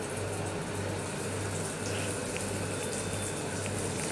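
Yeast-dough ring donuts deep-frying in hot oil, a steady bubbling sizzle with a low hum underneath.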